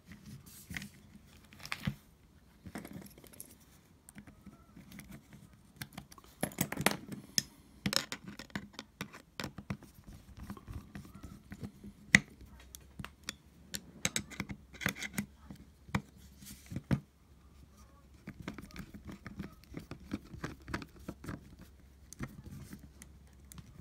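Irregular small metal clicks, taps and scrapes from a screwdriver driving screws into a small butane torch as it is put back together, with one sharper click about halfway through.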